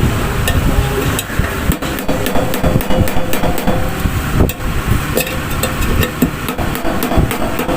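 Irregular metal knocks and clicks as a tool taps and pries at a microwave magnetron's casing to get its cover off.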